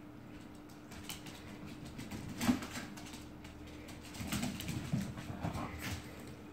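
Two dogs scrambling on a hardwood floor, their claws clicking, with short low dog vocalizations, one about two and a half seconds in and several more in the second half.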